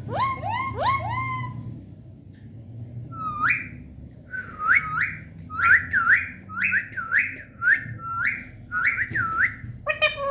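Ringneck parrot making short, rising whistled calls: a few at the start, then after a pause of about a second and a half a quick run of about a dozen more.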